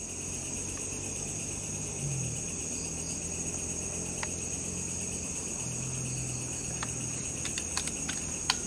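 Night insects, crickets, trilling steadily in a continuous high-pitched chorus, with a few faint clicks near the end.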